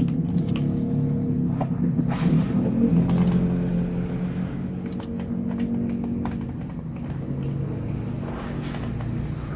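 A motor vehicle engine running outside, a steady low hum that slowly fades. Small scattered clicks come from a screwdriver working the screws of a laptop's bottom panel.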